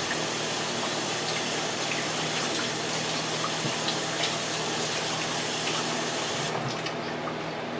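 Kitchen tap running as hands are washed under it, with small splashes, then shut off about six and a half seconds in. A steady low hum of the microwave heating bacon carries on underneath.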